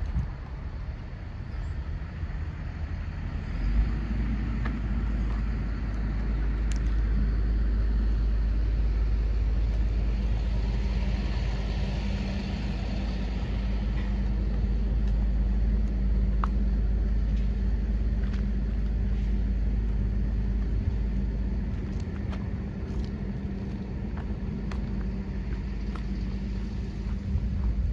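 Ford 6.8-litre V10 gasoline engine of a Class A motorhome running at a steady idle, a deep even rumble that grows louder about four seconds in.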